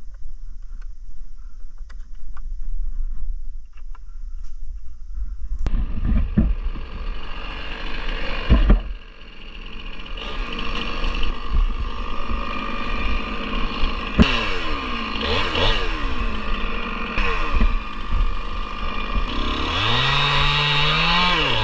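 A Stihl chainsaw starting up about six seconds in after a low rumble with a few knocks. It runs with its engine pitch repeatedly rising and falling as it is revved and loaded, and revs up high near the end.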